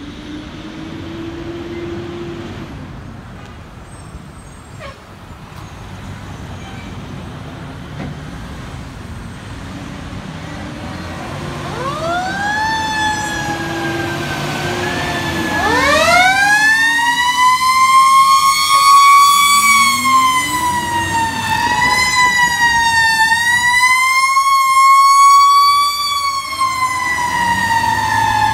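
Fire engine sirens on an emergency response, with the low rumble of the trucks' engines. The siren wail begins about twelve seconds in and grows loud as the engines draw near, rising and falling, with a quicker up-and-down stretch near the end and a second siren joining.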